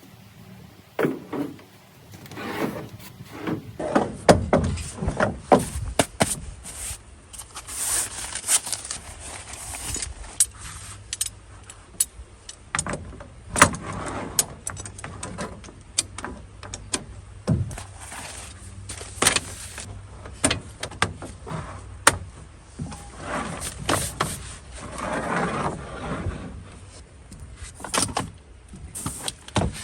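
Camping gear being handled: a string of irregular knocks, clinks and rustles, with sharper knocks near 4, 6, 14, 19 and 22 seconds in.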